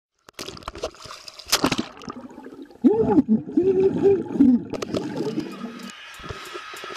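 Underwater bubbling and gurgling with a splash about a second and a half in, then a boy's voice talking underwater from about three seconds in, muffled and warbling, saying "You're watching TDCtricks!"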